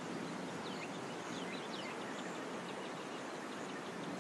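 Steady outdoor hiss, with a quick run of short, high chirping calls from about half a second to three seconds in.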